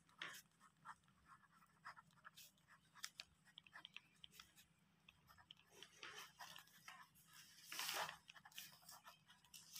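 Near silence with faint pen strokes on notebook paper: scattered soft ticks and scratches as an equation is written by hand, and a brief soft rustle about eight seconds in.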